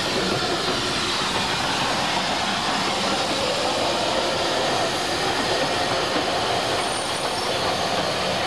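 Narrow-gauge steam train of locomotive and coaches rolling past at low speed, a steady running noise of wheels on rail.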